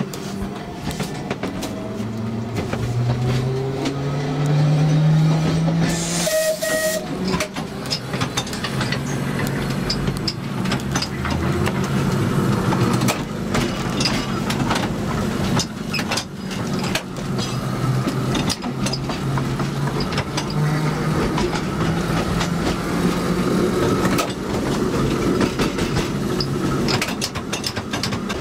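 Narrow-gauge electric tram running, heard from the driver's cab: the traction motors' whine rises in pitch as the tram picks up speed over the first few seconds, then holds a steady hum, with the wheels clicking over the rail joints. A brief higher tone sounds about six seconds in.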